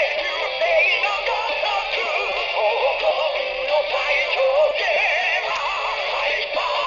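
Music with a sung melody played through the small built-in speaker of a Bandai Kamen Rider Decade K-Touch21 transformation toy, thin with no bass.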